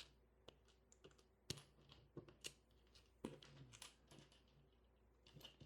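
Faint, scattered clicks and taps of small plastic LEGO pieces being handled and set down.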